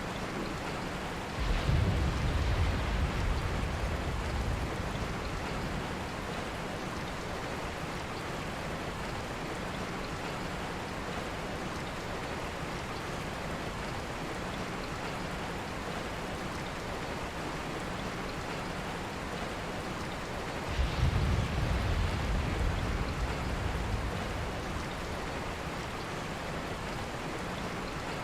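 Steady rain, with a low rumble of thunder twice: once about a second and a half in and again about twenty seconds later. Each rumble starts suddenly and fades over a few seconds.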